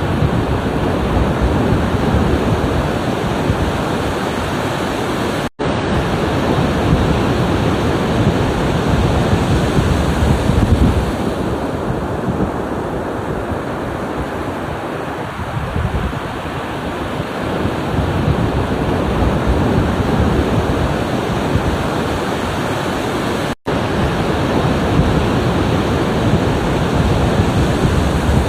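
Ocean surf washing and breaking on a shore in a steady rush with slow swells. The sound cuts out for an instant twice.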